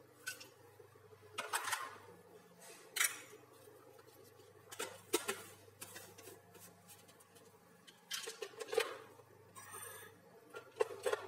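Scattered light clicks, knocks and scrapes of a plastic blender jar and a metal spoon being handled: the jar set onto the blender base and the spoon working through ground peanuts in a ceramic bowl.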